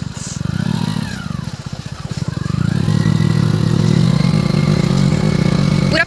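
Motorcycle engine running while riding. It eases off about a second in, then picks up again with a rising pitch and pulls steadily from about two and a half seconds on.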